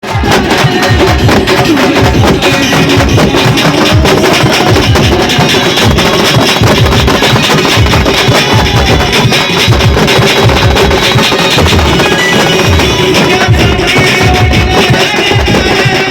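Halgi frame drums beaten with sticks by a group, playing a fast, loud, continuous rhythm.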